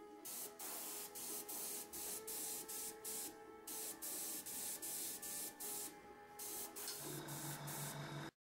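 Airbrush spraying paint in short bursts, its hiss of air switching on and off about twice a second as the trigger is pressed and released. The sound stops suddenly near the end.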